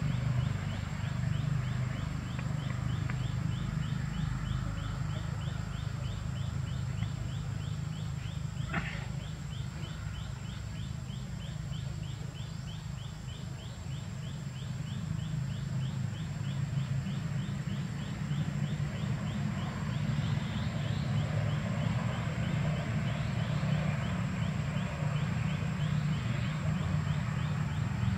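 Outdoor ambience: a steady low rumble under a fast, even ticking and a thin, steady high whine, with one short, sharp squeak about nine seconds in.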